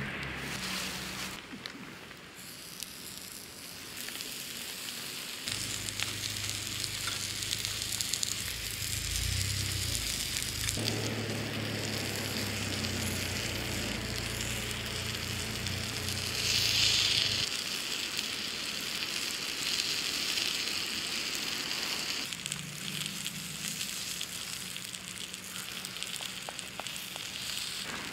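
Takoyaki batter frying in a takoyaki plate, a steady hiss of sizzling that swells louder for a moment about 17 seconds in.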